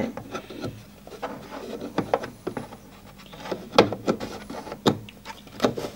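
Hard plastic rubbing and clicking as the LX610e label printer's plastic extender arm is worked into the grooves on the printer's casing, with a few irregular sharp knocks, the loudest about four seconds in.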